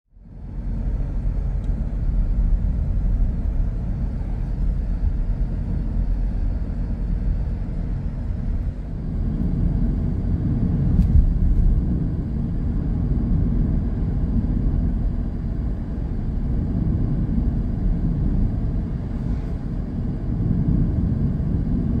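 Steady low rumble with no distinct events, and a faint click about eleven seconds in.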